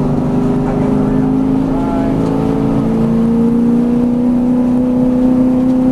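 V8 Supercar's V8 engine heard from inside the cockpit, pulling steadily under acceleration in one gear, its note rising slowly as the car gains speed.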